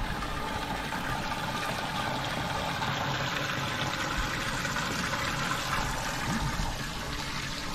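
Boat livewell's fill pump pouring a steady stream of water into the livewell, splashing and bubbling.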